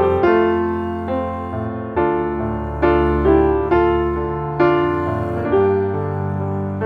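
Background piano music: chords struck about once a second, each ringing and dying away.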